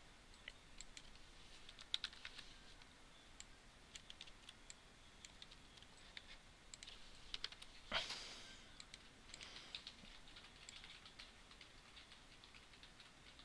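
Faint computer keyboard typing and mouse clicks, scattered and irregular, with one louder knock about eight seconds in.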